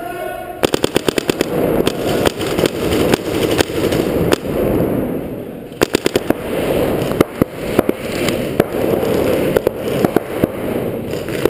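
Paintball markers firing: fast strings of sharp pops, with more strings and single shots scattered throughout.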